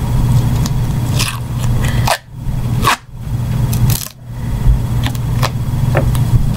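Black duct tape being pulled off the roll and torn, short ripping sounds several times. Under it a steady low hum, which cuts out briefly three times.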